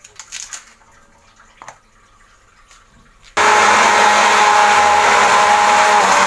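A few light knocks as ice cubes go into a plastic jug, then an electric hand blender switches on about three seconds in and runs steadily and loudly, churning cold coffee with milk, ice cream and ice.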